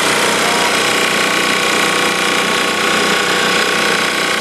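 Onan engine of a 3-kilowatt MEP-701A military generator running steadily, heard up close with its engine compartment open.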